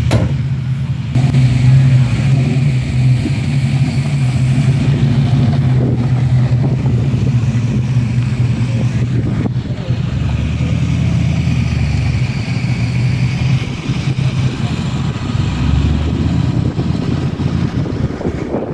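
Engine of a 1950s Buick four-door sedan running steadily at low revs as the car creeps forward, with the note deepening briefly a couple of times.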